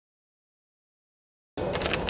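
Dead silence, then about one and a half seconds in the sound cuts in abruptly with a crackly rustling noise.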